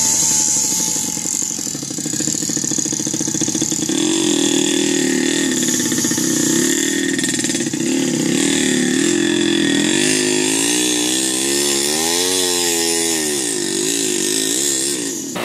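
Small motorbike engine running hard under a heavy load of logs, its pitch rising and falling several times in the second half as the rider works the throttle.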